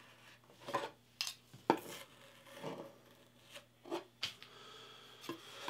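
Hobby knife cutting painter's tape along a plastic ruler on a wooden panel, and the ruler being lifted and set down: a string of short scrapes and clicks, the sharpest about a second and a half in and just past four seconds.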